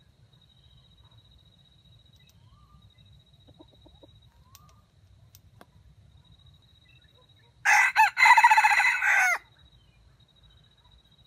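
Red junglefowl rooster crowing once: a single short crow of under two seconds, about eight seconds in, with a brief break near its start. A few faint bird chirps come before it.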